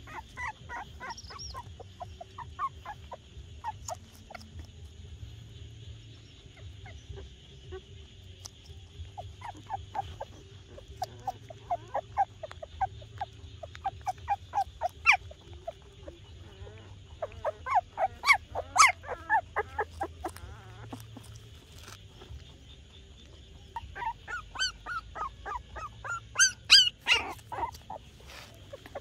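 A young animal squeaking in repeated short, high cries, several a second, in bursts that grow louder near the end, over a steady high hiss.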